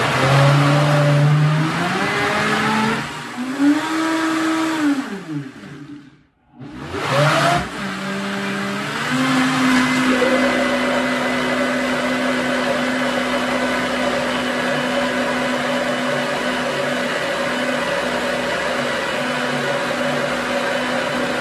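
High-powered countertop blender blending a thick coconut-almond yogurt mix. The motor pitch climbs, rises further and drops back, then the blender stops briefly about six seconds in. It starts again and runs up to a steady high speed that holds to the end.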